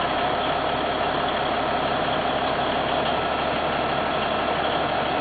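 Chairlift terminal machinery running steadily: the drive and bullwheel turning the haul rope as chairs pass through, an even mechanical noise with no change in pitch.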